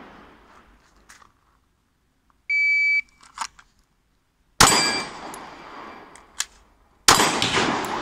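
A short electronic shot-timer beep, then two shots from a Stoeger STR-9 9mm pistol about two and a half seconds apart, each with a long echoing tail, with a magazine change between them.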